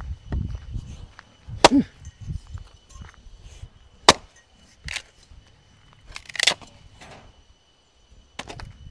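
Axe chopping and splitting firewood logs: a handful of sharp blows, the loudest about two seconds in, and a longer crack of wood tearing apart a little after six seconds.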